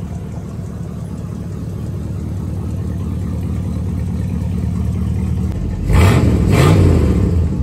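The bullnose Ford F-150's 302 V8 idling, then revved up and back down about six seconds in.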